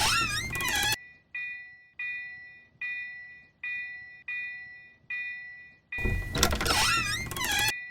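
Japanese railroad crossing warning bell ringing "kan-kan", a bright tone struck about once every three-quarters of a second and fading between strikes. Loud noisy bursts with wavering, warbling tones cut in during the first second and again near the end.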